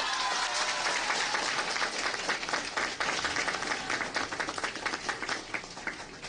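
Audience applauding, a dense patter of many hands clapping that thins out and dies away near the end.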